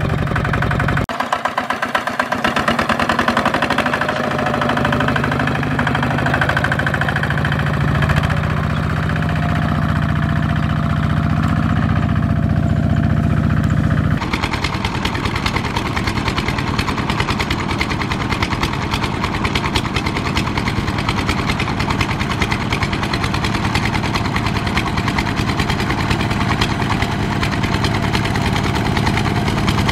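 Kubota ZT120 single-cylinder diesel engine of a two-wheel walking tractor running steadily under load, pulling a loaded cart, with a rapid knocking beat. The sound changes abruptly about a second in and again about halfway through.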